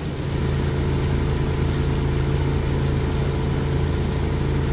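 Engine sound effect for a cartoon rescue train: a steady, low engine hum at a constant pitch.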